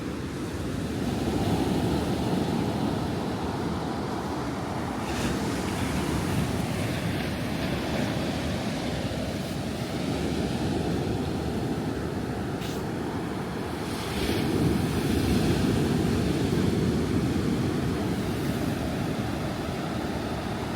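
Ocean surf: waves breaking and washing up the shore in a continuous rush, swelling louder about a second in and again about two-thirds of the way through.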